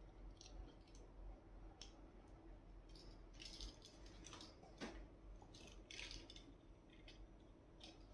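Near silence broken by faint scattered clicks and soft rustles, typical of small objects being handled, over a low room hum.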